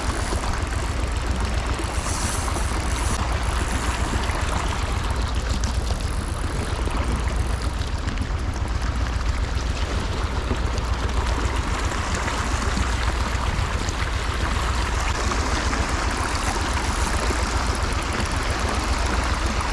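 Steady rush of flowing creek water, an even wash of noise with a low rumble underneath.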